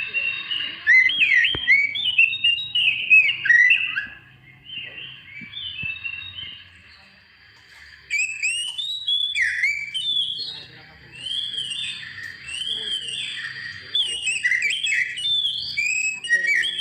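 Young oriental magpie-robin singing: a fast, varied run of clear whistles, chirps and sliding notes. It drops away for a couple of seconds about midway, then resumes.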